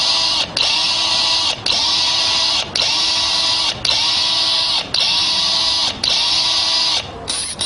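Electronic dance music: a buzzing, hissing synth sound repeating in even blocks about once a second, breaking into a quick stutter near the end.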